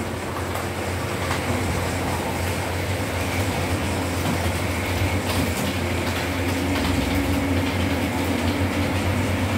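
Model train running on layout track: a steady low hum with light clicking from the wheels and track.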